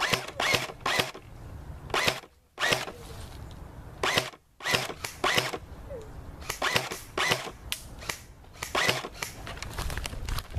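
Airsoft guns firing single shots in an exchange of fire, sharp cracks at an irregular pace of about two a second with a couple of brief pauses.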